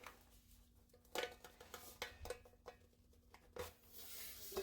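Faint clicks and scrapes of a tool prying at the lid of a sealed can of freeze-dried peaches, then a short hiss near the end as air rushes in: the vacuum seal being punctured, a sound the opener calls a gasp.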